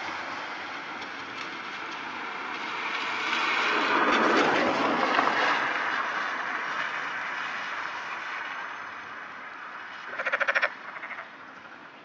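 A black-spotted pond frog gives one short croak about ten seconds in: a rapid rattle of pulses, with a weaker second rattle right after. Before it, a steady rushing hiss swells to a loud peak and fades away again.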